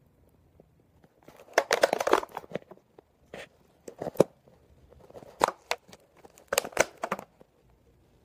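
Handling noise from a phone being gripped and moved: fingers rubbing, scraping and knocking on the phone right at its microphone, in irregular bursts of crackling. It is loudest about two seconds in and again near seven seconds.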